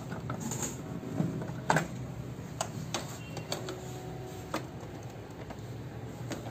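Irregular plastic clicks and taps as the casing of an Epson ink-tank printer is handled and opened, about a dozen sharp ticks spread across several seconds, with a faint steady hum underneath at times.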